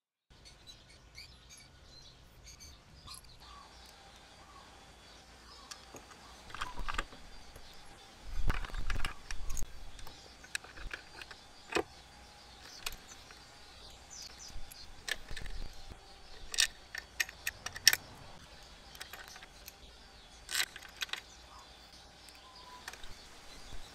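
Scattered metallic clinks and clicks of steel bolts and hand tools while the Allen-head bolts of a scooter's CVT cover are fitted and driven in with a 5 mm Allen socket, with a dull knock about eight seconds in.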